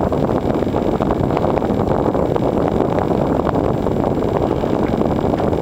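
Steady, loud wind noise buffeting the camera microphone.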